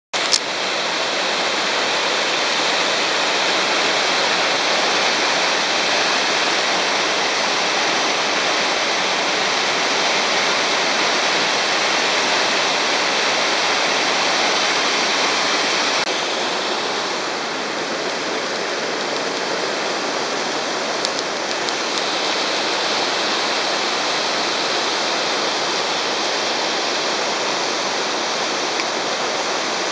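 Waterfall rushing steadily into a river, a constant hiss of falling water that becomes a little softer in the second half.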